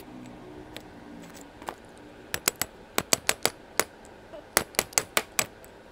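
A run of sharp metallic taps and clicks, several a second in uneven groups, starting about two seconds in, as steel ball bearings and a shaft are handled and fitted into a cast-iron hub.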